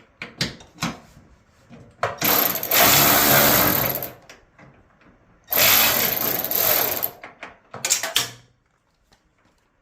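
Power driver run in two bursts, about two seconds and then a second and a half, spinning off the 9/16 nut that holds a dryer drum support roller. Light clicks and knocks of the socket being fitted and handled come before and after.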